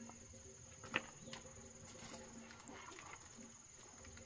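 A steady, high insect trill, with a single sharp click about a second in.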